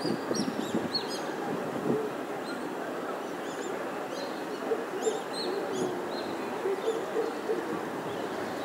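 Birds chirping in short, high calls scattered throughout, over a steady hum of distant city traffic.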